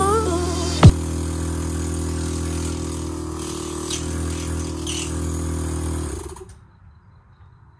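A motor running steadily with a low, even hum, and one loud, sharp sweep falling in pitch about a second in. The hum stops about six seconds in.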